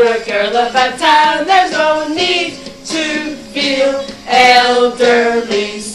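Three women singing together, with wavering, vibrato-laden voices.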